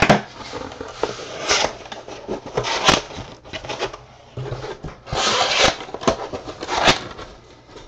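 Cardboard being handled and folded, as when a card storage box is put together: sharp snaps and clicks with scraping and rustling between them, about five snaps in all and a denser rustle around the middle.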